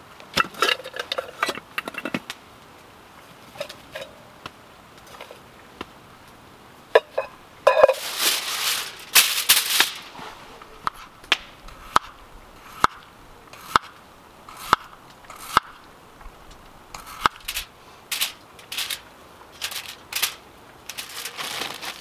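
Camp cooking gear and food being handled: scattered clicks, a loud rustle about eight seconds in, then a run of sharp knocks about once a second.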